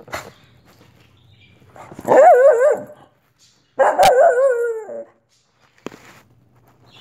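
Wheaten terrier giving two drawn-out barks with wavering pitch, each close to a second long, the second trailing down at its end. Short sharp knocks come between them, the loudest during the second bark, as the dog bumps the camera.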